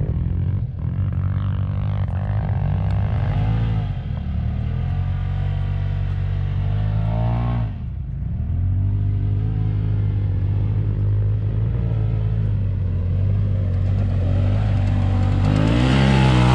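Polaris RZR turbo side-by-side engine running hard under throttle. The revs drop briefly and climb again three times in the first eight seconds or so, then rise louder near the end.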